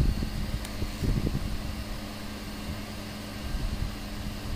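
Steady fan-like hum with a low droning tone, with a few soft handling bumps at the very start and again about a second in.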